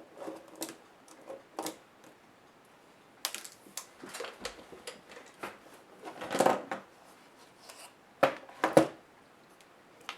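Plastic and metal laptop parts handled during disassembly: scattered clicks, taps and short scrapes, a longer scrape about six seconds in, then two sharp knocks about half a second apart.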